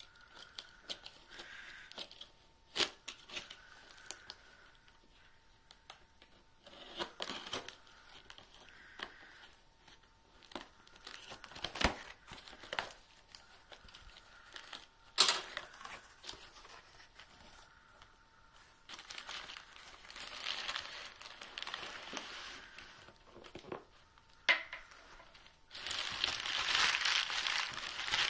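A taped cardboard shipping box being cut and opened with a box cutter: scattered clicks, knocks and scrapes of the blade, tape and cardboard flaps. About two seconds from the end, crumpling and rustling of newspaper packing being pulled out of the box.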